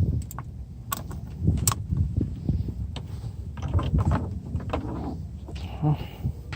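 Scattered clicks, knocks and low thuds from handling electrical wiring and connectors by hand.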